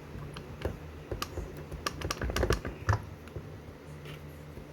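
Quick run of small hard clicks and taps as an AR-15 pistol grip and the rifle's lower receiver are handled, densest about two to three seconds in, with the sharpest knock near three seconds.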